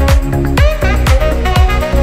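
Upbeat electronic background music with a steady kick drum about twice a second.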